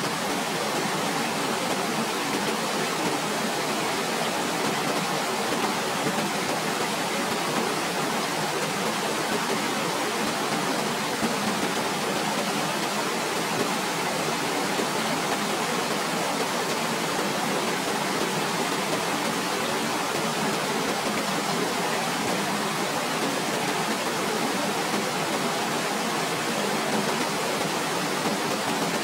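Waterfall: a steady, unbroken rush of falling water with little deep rumble.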